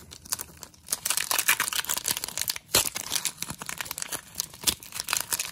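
Foil Pokémon card booster pack wrapper being torn open and crinkled in the hands: a dense crackling that starts about a second in, with a few sharper crackles.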